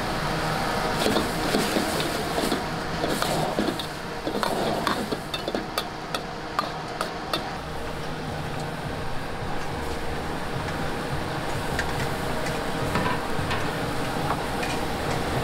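Stir-frying seafood fried noodles in a metal pan: a spatula knocks and scrapes against the pan in irregular clinks, over a steady sizzle and background hum.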